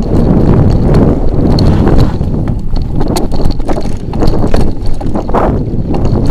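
Mountain bike riding over a bumpy dirt forest trail, heard through a camera clamped to the handlebars: a dense low rumble of vibration with frequent small knocks and rattles from the terrain, and wind buffeting the microphone.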